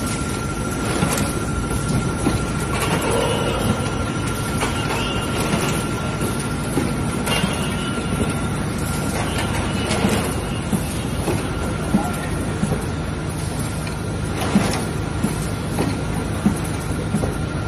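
Automatic plastic bottle blow-moulding machine running: a steady mechanical din with a constant whine, broken by several short, sharp sounds a few seconds apart.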